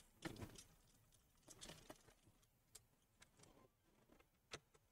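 Near silence, broken by a few faint clicks and taps of a Phillips screwdriver and hands working the screws of a laptop's plastic bottom cover.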